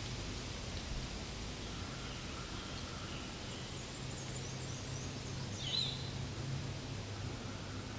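Steady outdoor background noise, with a run of short, faint high chirps from about halfway through and one louder squeak a little before the end.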